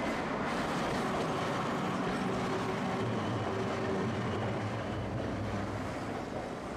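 Tosaden streetcar running on street track, a steady rumble of wheels and motor that eases off slightly near the end.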